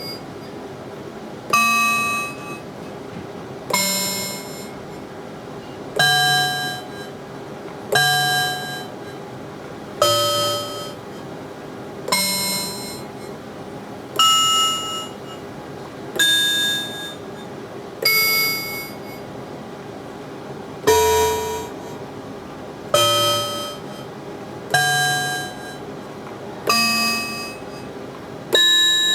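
Analog modular synthesizer playing a bell patch with a ring modulator mixed into the oscillators' output: a bell-like note struck about every two seconds, each at a different pitch and dying away within a second or so. The ring modulator adds overtones that are not musically related to the note, so the bell sounds less pure. A faint steady hum sits under the notes.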